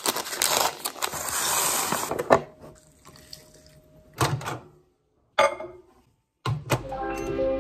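Kitchen food preparation: dry instant oats hiss as they are shaken from a torn paper sachet into a ceramic bowl, and milk is poured from a carton in a short splash about four seconds in. After a couple of sharp clicks from the microwave door and controls, the Sharp Carousel microwave starts its steady low hum, and music comes in just before the end.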